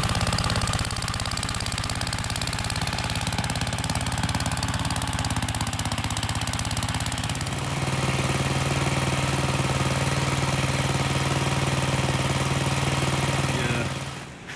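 Gravely L8 two-wheel tractor's engine running steadily with rapid, even firing. Its note shifts about halfway through, and it dies away near the end.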